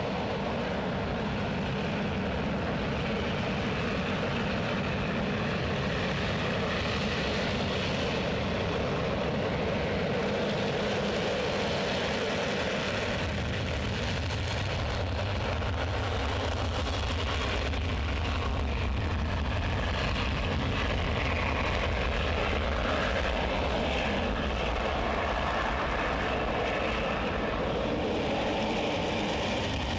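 Dassault Rafale fighter jet engines running on the runway, a steady jet roar that grows a heavier low rumble about halfway through as a jet rolls out for take-off.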